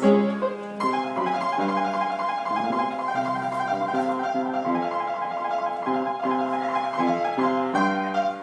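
Piano playing an instrumental passage of a song between sung lines, with a steady run of chords and melody notes.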